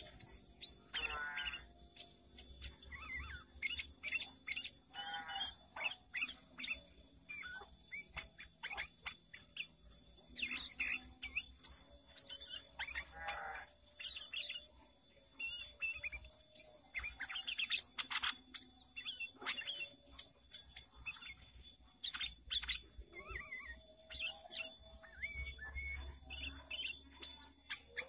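Sooty-headed bulbul (kutilang) singing a busy, varied song of rapid, sharp, high chirps broken by a few short trills.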